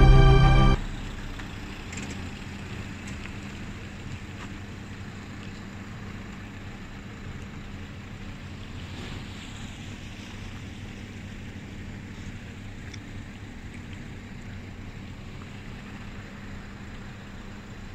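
Music cuts off about a second in, giving way to a steady vehicle hum: a constant low engine tone under even running noise.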